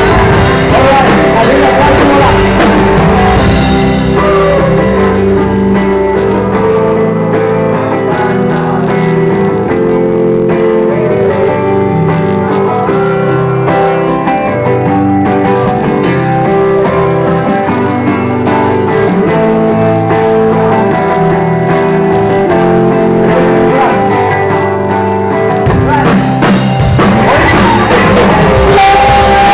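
Live rock band music led by an electric guitar. The deepest bass and kick drum thin out for most of the passage, and the full band comes back in near the end.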